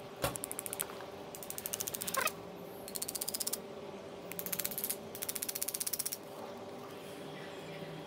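A hammer strikes a nail into a small wooden block with one sharp knock, followed by four short bursts of rapid, even clicking over a faint steady hum.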